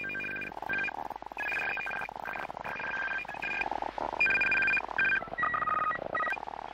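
Experimental electronic music: stuttering bursts of two high electronic tones, like a telephone ringtone, over a pulsing buzz.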